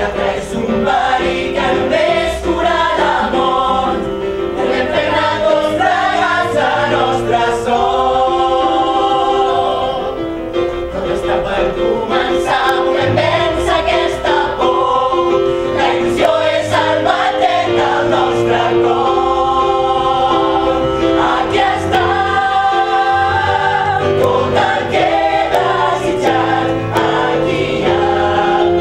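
Music: a song sung by a group of voices in chorus, over held chords and a bass line.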